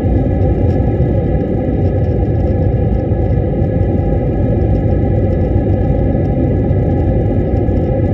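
Airliner cabin noise during descent to land: turbofan engines and airflow heard from inside the cabin as a steady, even rumble, with a faint steady high whine above it.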